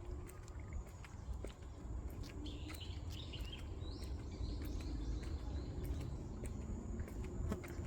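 Summer outdoor ambience on a walk: birds chirping, loudest from about two and a half to five seconds in, over a steady high insect trill. Scattered ticks of footsteps and a low rumble on the microphone run underneath.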